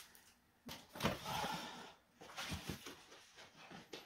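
Handling noise from unpacking: a rustling scrape about a second in as boxed accessories move against the cardboard shipping box, then a few light knocks of box against box as one is lifted out.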